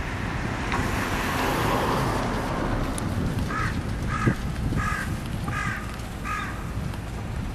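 A crow cawing five times in an even series over steady city traffic noise.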